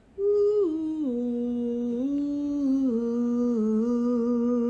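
Someone humming a slow tune. A few long held notes step down in pitch over the first second, then the humming stays around one low note with small rises and dips.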